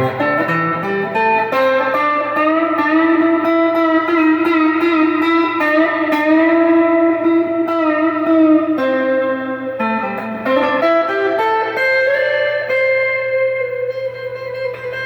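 Donner DST200 electric guitar with its stock pickups, played through an amplifier: a single-note melody with several long, sustained notes.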